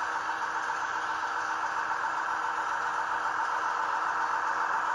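HO scale model train running on the layout, with a Union Pacific locomotive model rolling past freight cars: a steady, unchanging running sound carrying a few steady tones.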